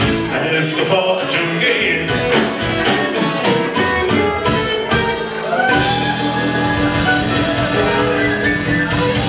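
Live rock band playing, with electric guitar, bass guitar, drums and organ-type keyboards. About two-thirds of the way in, the drumming stops and the band holds one long sustained chord, with the electric guitar bending a note upward over it, like the closing chord of a song.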